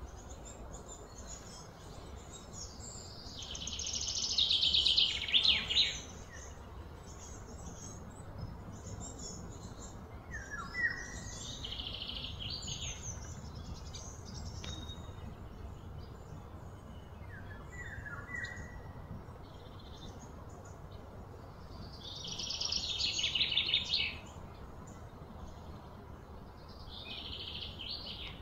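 Birds singing: two loud, fast trilling songs that swell and fade, one a few seconds in and one later on, with short falling chirps between them over a low steady rumble.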